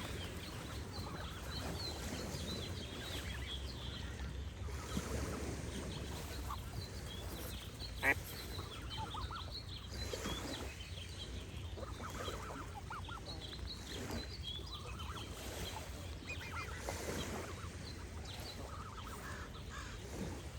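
Geese honking now and then over a steady low wash of water, with small birds chirping throughout. A single sharp click stands out about eight seconds in.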